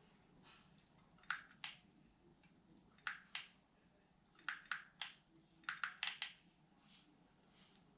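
Sharp clicks of hard objects, eleven in all: two pairs, then a run of three and a quick run of four.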